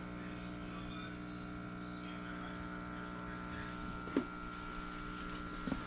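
Steady hum with water bubbling at the surface from an aquarium air stone in a goldfish tub. Two faint knocks come near the end.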